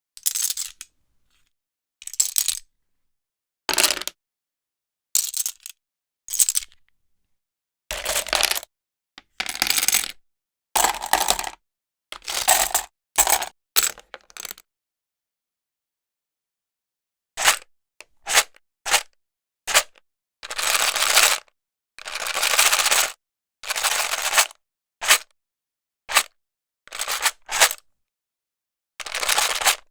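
Rummy tiles clacking against each other as they are moved, in short separate bursts. After a pause of about three seconds, the tiles are shaken in a plastic case, rattling in longer bursts of about a second each.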